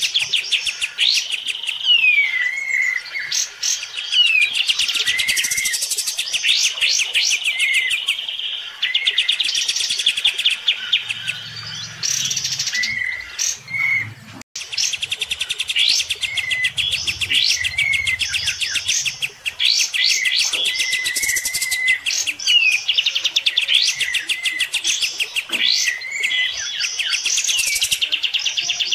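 Kapas tembak bulbuls singing almost without pause: rapid, buzzy rattling trills with short slurred whistled notes between them. It is a singing duel between neighbouring caged birds.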